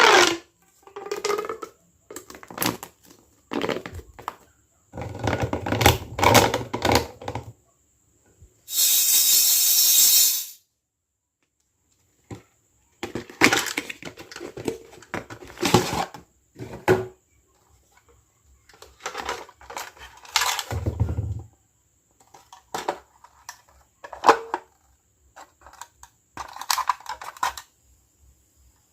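Small plastic toy kitchen pieces clicking and clattering against each other as they are unboxed and handled, in irregular bursts. About nine seconds in there is a steady two-second hiss.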